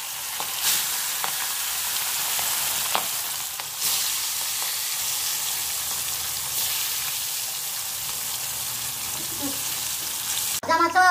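Fish steaks frying in hot oil in an aluminium kadai: a steady sizzle with a few brief crackles and spits as fresh pieces go in.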